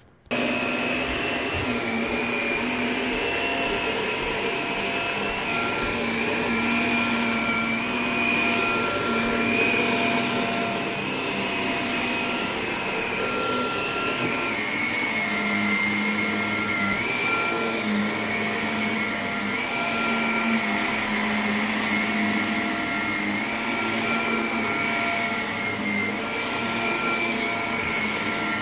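A corded upright vacuum cleaner starts up at the very beginning and runs while being pushed back and forth over carpet and a shag rug. It makes a steady high motor whine whose pitch wavers slightly as the head moves.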